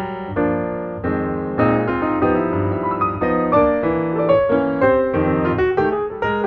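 Background piano music, a busy tune of many quick notes.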